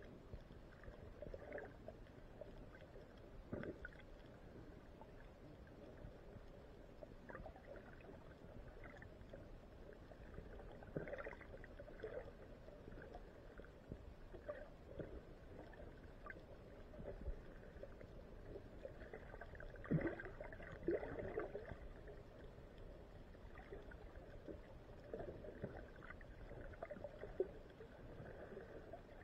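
Water heard through a submerged camera: a faint low rumble with scattered gurgles and knocks, and a louder cluster of them about two-thirds of the way through.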